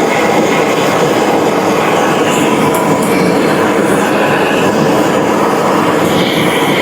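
A machine running with a steady, loud, even noise that does not change.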